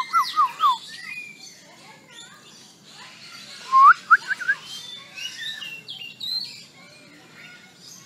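A myna calling: a quick run of four falling whistles at the start, a rising whistle with a few short clipped notes about four seconds in, and scattered higher chirps and squeaky notes in between.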